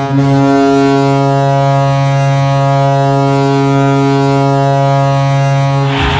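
Hockey goal horn blowing one long, steady low blast. It cuts off about six seconds in as music and crowd cheering start.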